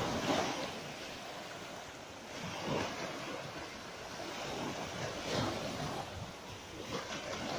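Small sea waves breaking and washing up the beach: four washes, about one every two and a half seconds.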